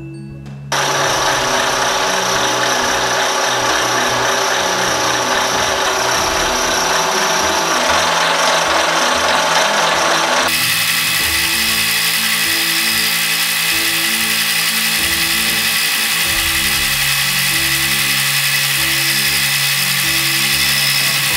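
End mill on a milling machine cutting flats on a rifle barrel blank: a loud, steady cutting noise starts about a second in and changes abruptly about ten seconds in. Soft background music plays underneath.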